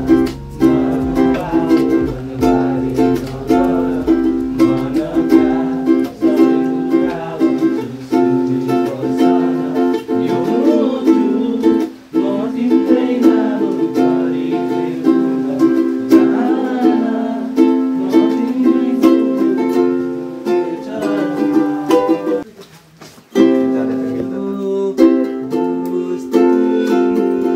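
Ukulele strummed in a steady rhythm of chords, with a brief break about three-quarters of the way through.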